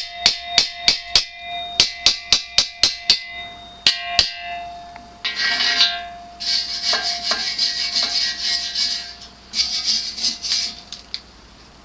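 A hammer striking the welded steel of a forge body about three times a second, each blow ringing, typical of knocking slag off a fresh weld. About five seconds in the blows give way to long rasping scrapes of metal on metal, which fade near the end.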